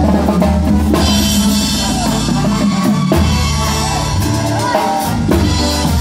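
Loud banda music: a drum kit keeping the beat under a deep, sustained bass line, with a melody line above.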